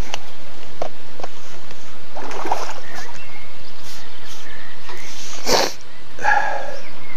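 Steady loud hiss from a faulty microphone, with scattered clicks and knocks and a sharp rush of noise about five and a half seconds in.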